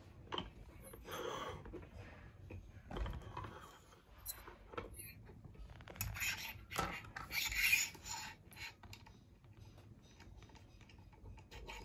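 Microscope stand parts handled by hand: small clicks and knocks of the holder and fittings with scraping and rubbing as the holder is fitted onto the aluminium pole, the rubbing loudest about six to eight seconds in.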